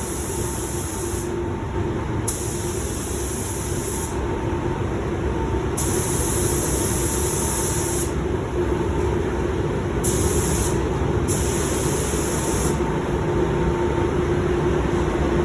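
Iwata LPH 400 spray gun hissing in about five bursts of one to two seconds as the trigger is pulled and released, laying sealer on the edges and bands of a car hood, over a steady hum.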